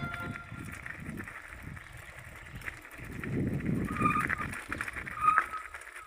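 Outdoor ambience: uneven low rumbling on the microphone, with a bird calling briefly about four seconds in and again about a second later.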